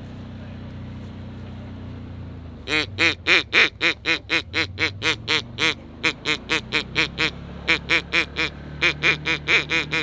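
Mallard duck call blown in a long, rapid run of quacks, about four to five a second, in several strings with short breaks, starting about three seconds in. A low steady hum runs underneath.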